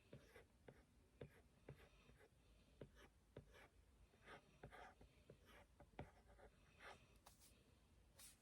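Faint sounds of drawing by hand: short scratchy strokes and light taps of a drawing tool on its surface, a few each second.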